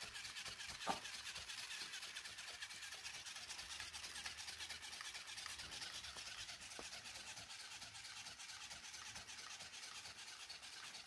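Battery-powered flapping parrot toy whirring steadily as its small motor drives the wings, with fast fine ticking from the flapping. A single sharp tick about a second in.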